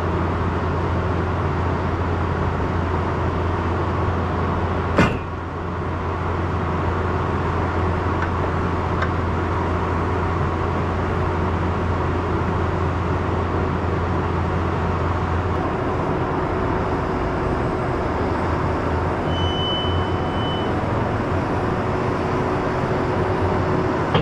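A large vehicle's engine idling steadily, its low rumble easing slightly about two-thirds of the way through. A single sharp knock about five seconds in, and a short high beep near the end.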